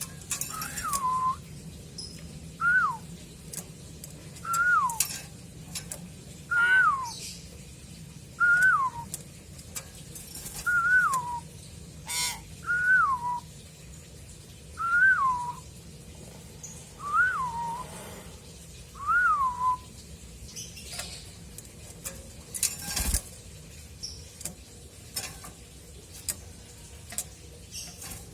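Pet myna whistling the same short note ten times, about every two seconds: each note rises quickly and then slides down. The whistling stops after about 20 seconds, leaving scattered light clicks and one louder knock.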